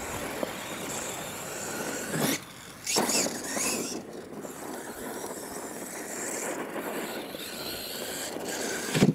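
Radio-controlled monster truck running over a dirt course: its motor whines and its tyres scrabble on the dirt, with the whine rising and getting louder about two and three seconds in.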